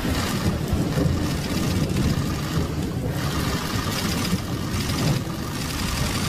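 Press photo-op room sound: a steady low rumble with several bursts of rapid camera-shutter clicking.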